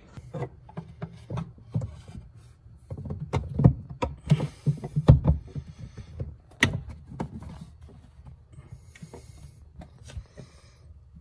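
Hands fitting plastic plumbing fittings and braided vinyl hose onto a plastic water tank: irregular knocks, clicks and rubbing, busiest about four to five seconds in.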